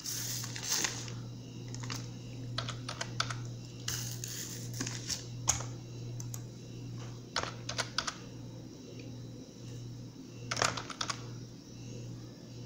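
Keys of a computer keyboard being tapped in short, irregular clusters as a numeric code is typed in, over a steady low hum.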